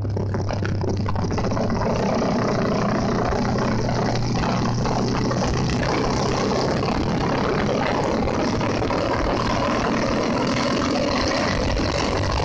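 Motorcycle riding at road speed: steady wind rush over the mic mixed with the bike's engine hum, which eases a little past the middle.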